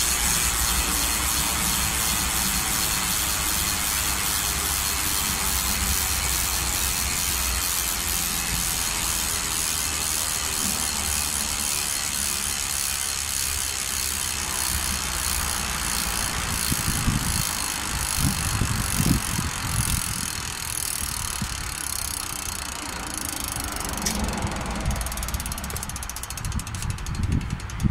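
Mavic XA rear hub's Instant Drive 360 freehub buzzing as the rear wheel coasts freely: a fast, even ratchet clicking that slows as the wheel winds down near the end. A few dull low thumps come through in the second half.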